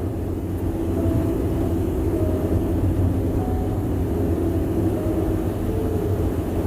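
Car tyres running on the road at speed: a steady low rumble and drone, which the driver finds unusually loud.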